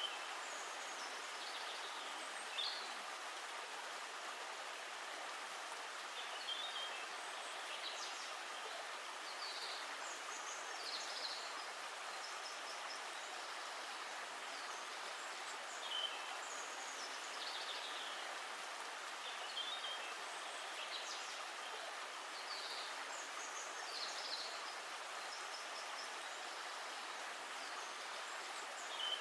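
Steady rushing of a flowing stream, with short high bird chirps every second or two.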